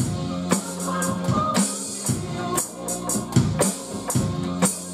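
Electronic drum kit played along to a backing song: a steady beat of drum and cymbal hits, about two a second, over the song's bass and melody.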